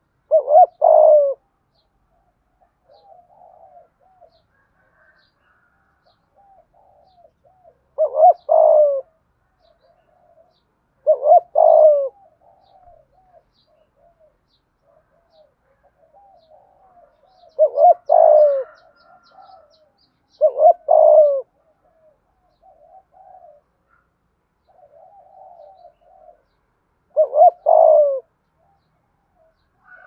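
Spotted dove giving its calling coo: six short phrases of a few deep notes each, spaced a few seconds apart, with much softer cooing notes between them.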